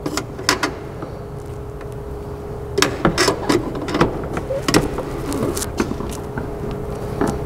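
Hand-handling sounds of fitting an H11 LED fog light bulb into its housing inside a truck's wheel well: irregular plastic clicks, knocks and rustling, busiest a few seconds in, over a steady faint hum.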